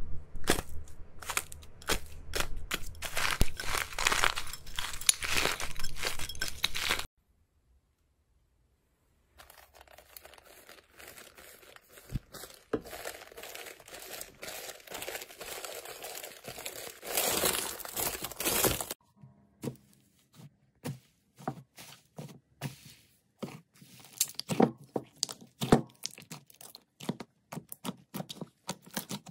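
Three slime-play sounds in turn. First a dried skin on a bowl of purple slime crackles and cracks under pressing fingers for several seconds, then comes a short silence. Next, sheets of printed paper rustle and crinkle under the hands, and in the last third fingers pressing into a mound of blue slime make scattered clicks and pops.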